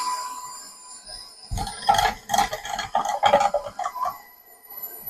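KitchenAid stand mixer running with a shredder attachment, its motor a faint steady whine. About a second and a half in, a run of irregular knocks and clatters sounds for a couple of seconds as a block of cheese is fed into the attachment's plastic hopper.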